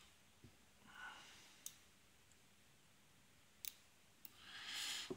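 Faint clicks of a hook pick working the pins of an SPP Eurospec MP10 six-pin padlock under tension: a handful of single ticks spaced a second or more apart. A soft hiss swells up near the end.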